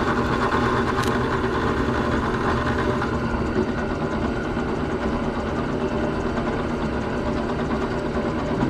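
Electric drill running steadily as its bit bores another hole through a wooden blank.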